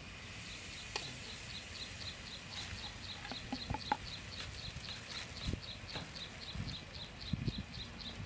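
Food-preparation handling: a plastic bag rustling, with clicks and knocks of a ladle and pot, the loudest near the middle and near the end. Behind it a high chirp repeats steadily about four or five times a second.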